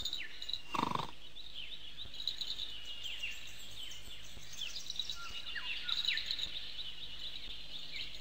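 Forest ambience of small birds chirping: many short, high, falling chirps repeating throughout over a faint steady hiss, with one brief lower burst about a second in.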